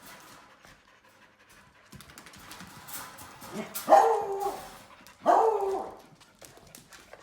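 Puppies barking while they play-fight: two loud, short barks about four and five seconds in, after a few quieter sounds.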